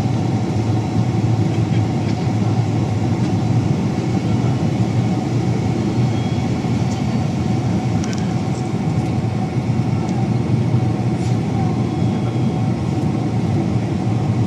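Steady low rumble inside the cabin of a Boeing 767-300 airliner, the noise of its engines and airflow, with a faint steady whine above it. The level does not rise or fall.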